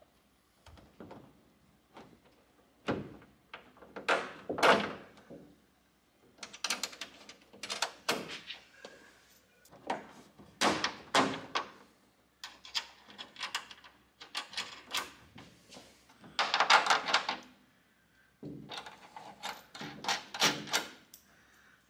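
Irregular clunks, taps and scrapes of a URAS Third Dimension GT wing's metal mounting stands being handled and lined up on a car's trunk lid, with one longer, louder burst about three-quarters of the way in.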